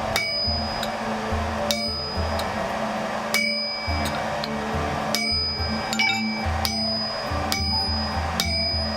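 Hammer blows on an anvil, a sharp ringing clang at irregular intervals of about a second, over background music.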